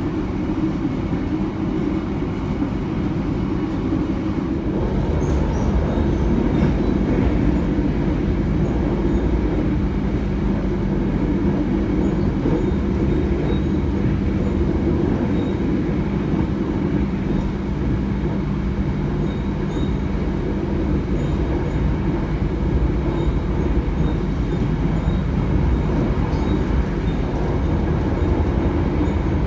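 Argo Dwipangga passenger train running along the track: a steady rumble of wheels on rails that grows a little fuller about five seconds in.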